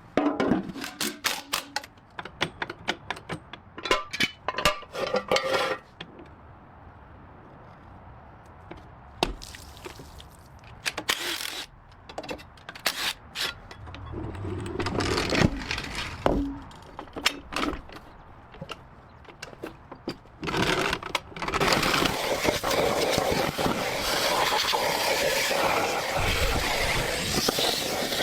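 Irregular metallic clinks, knocks and scrapes of tools and parts being handled on an engine. From about 22 seconds in, a loud, steady rushing noise takes over and lasts to the end.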